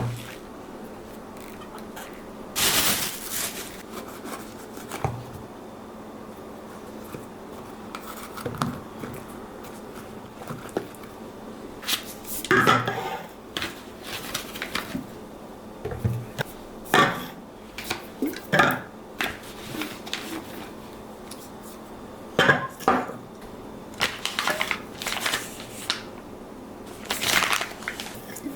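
Kitchen handling sounds: irregular clinks and knocks of utensils and dishes, with a brief rustling burst about three seconds in.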